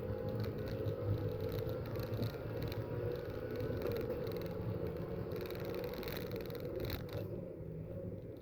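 Race car engines running on the circuit, a steady mixed engine drone that eases off slightly about seven seconds in.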